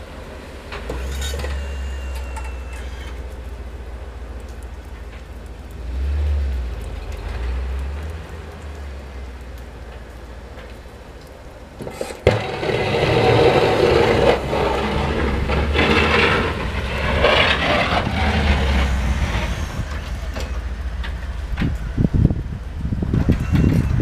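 Pickup truck's engine running under load while it pushes snow with a front-mounted plow. About halfway through, a sudden clack is followed by a loud, rough scraping and rushing of the blade and snow that lasts several seconds. Irregular low thumps from wind or camera handling come near the end.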